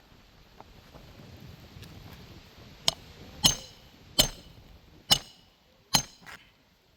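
Hammer blows driving roofing nails into a shingle: about six sharp strikes with a short metallic ring, spaced under a second apart, starting about three seconds in.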